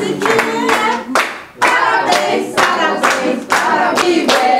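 A group singing a birthday song together and clapping along in time, about two claps a second.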